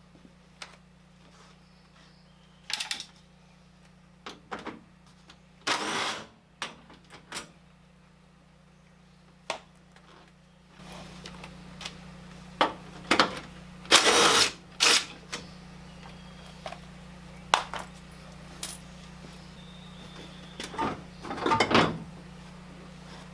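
Scattered clicks, clinks and clunks of hand tools and car parts being handled during headlight removal, a few of them short rattles, over a steady low hum that gets louder about eleven seconds in.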